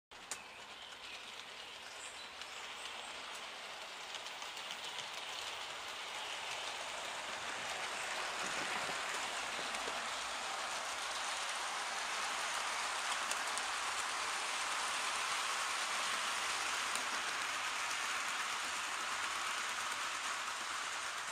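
00 gauge model train running on the track: a steady rushing rattle of wheels on rail that grows louder over the first several seconds and then holds.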